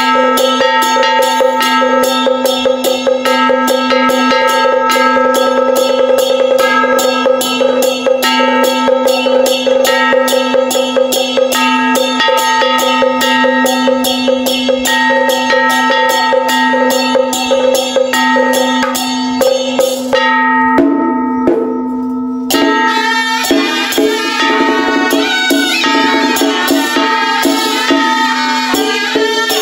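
Traditional Taoist ritual music: a quick, steady percussion beat with held melodic notes over it. The percussion drops out for about two seconds roughly two-thirds of the way through, then comes back in.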